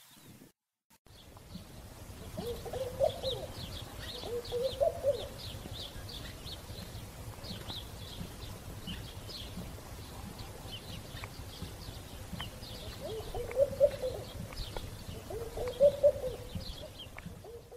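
Birds calling outdoors: a low, wavering call comes four times in short phrases over a steady run of quick, high-pitched chirps.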